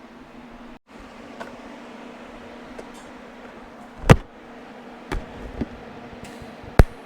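Steady electrical hum of a welder, broken by four sharp metallic knocks. The loudest knock comes a little past the middle, and another comes near the end.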